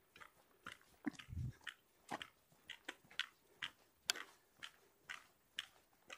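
Footsteps crunching on a dirt forest trail at a walking pace, about two steps a second, with a dull low thump about a second in.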